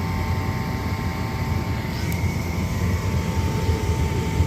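Ducane 80% gas furnace's draft inducer motor running steadily during start-up, a low hum with a faint steady whine over it.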